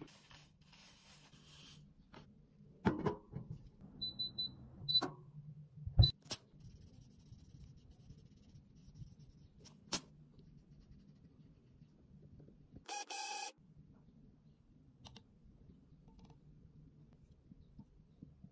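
Scattered knocks and clicks of tools and containers being handled while reworking pressed face powder, the loudest a dull knock about six seconds in. There is a short electronic beep about four seconds in and a brief hiss about thirteen seconds in, over a faint steady hum.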